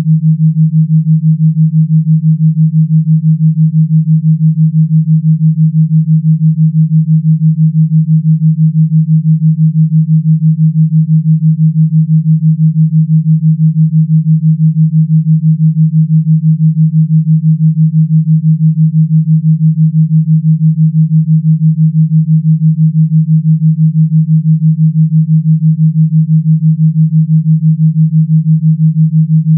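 Electronically generated pure tone, a single low steady pitch that pulses quickly and evenly, with no music or other sound.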